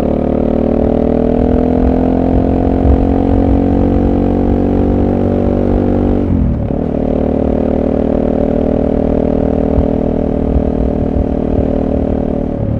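SWM Super Dual T's single-cylinder engine through its stock exhaust, heard on board while riding. The revs climb slowly for about six seconds, drop sharply and briefly around the middle, then hold steady.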